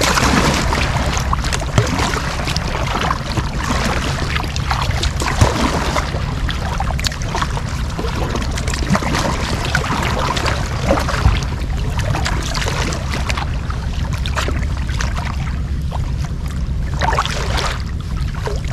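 Double-bladed kayak paddle dipping into the sea stroke after stroke, water splashing and dripping off the blades, over a steady low rumble of wind on the microphone. A few sharper splashes or knocks stand out along the way.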